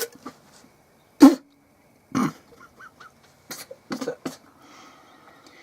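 Gardenline GLPC 41 chainsaw being handled and turned over onto its side: a series of knocks and clunks against the bench, the loudest about a second in, followed by a faint hiss near the end.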